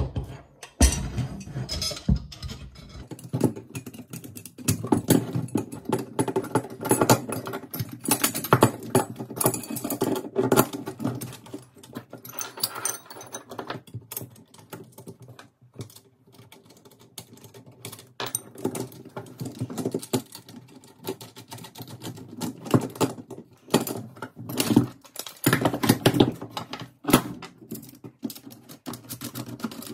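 Small steel bolts, nuts and washers clicking and rattling against aluminium tubing and a wooden workbench as they are handled and fitted by hand, in quick irregular clicks that thin out for a few seconds midway.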